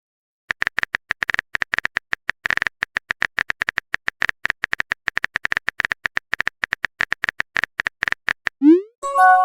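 Rapid phone-keyboard typing clicks, several a second, from the chat animation's sound effects. Near the end comes a short rising swoosh of a message being sent, followed by a two-note notification chime.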